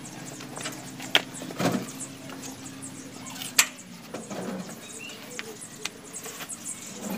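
Sharp metal clinks and softer knocks, the two loudest about a second in and about three and a half seconds in, as a Komatsu PC200-8 swing motor housing is handled and stood upright. A faint low steady hum runs under the first half.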